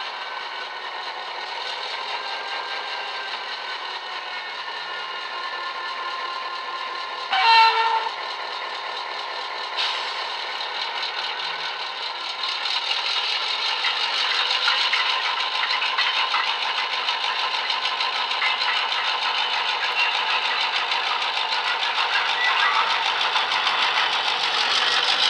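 Model locomotive sound decoder playing an Irish 121 class diesel's early-engine sound through a tiny double iPhone speaker, thin and without bass. The engine idles steadily, sounds a short horn blast about seven seconds in, and from about halfway the engine note grows fuller and louder as the locomotive pulls away.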